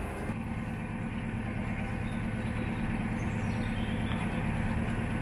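Narrowboat's diesel engine running steadily while under way, a low even drone that grows slightly louder.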